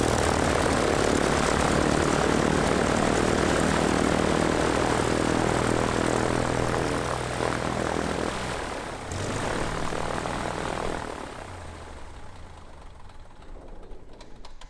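1961 Cessna 172's piston engine and propeller running just after start-up, freshly cranked on a new EarthX lithium battery. The sound is loud and steady, changes briefly about nine seconds in, then grows quieter and fades near the end.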